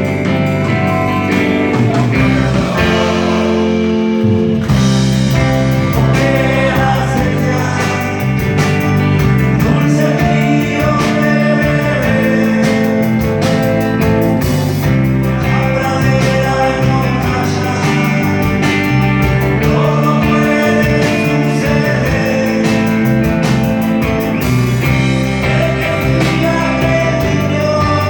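Live rock band playing a slow, full-band song: electric guitars and bass holding sustained notes over drums, with a voice singing.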